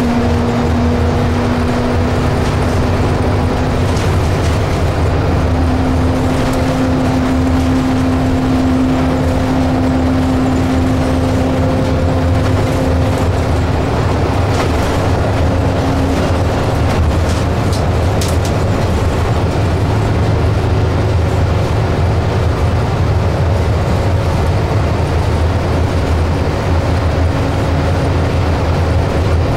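Inside a Scania K320UB bus on the move: its five-cylinder diesel drones with road and tyre noise. A steady whine steps up slightly about four seconds in, fades a little after halfway and comes back faintly near the end.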